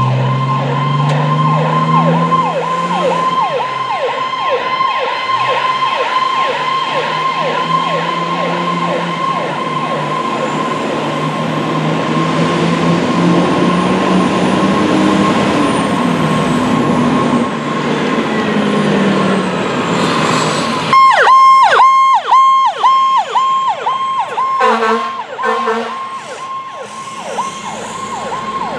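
Fire apparatus electronic siren (PowerCall) yelping in a rapid, regular cycle as fire trucks pull out on a call, with a diesel engine's rumble at the start. About 21 seconds in, a louder, sharply pulsed siren tone comes in close by for a few seconds, followed by a few short lower blasts.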